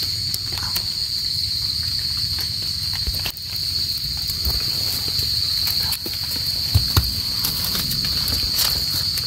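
A steady, high-pitched drone of insects calling, with scattered faint clicks and rustles from hands and a tool working in damp leaf litter and soil.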